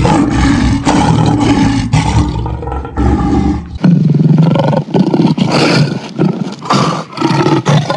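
Lion roaring: one long roar, then a second roar begins about four seconds in.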